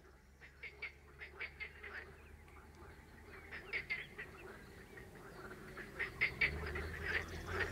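Frogs calling in chorus: short trains of rapid rattling pulses, several callers overlapping, growing louder toward the end, over a low steady hum.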